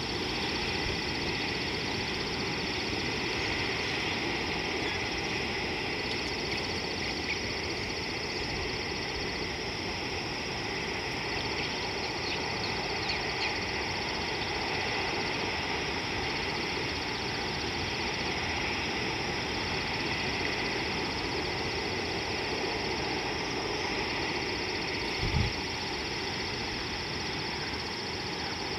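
Steady outdoor ambience: an even hiss with a faint, high, pulsing tone that comes and goes, and one short low thump near the end.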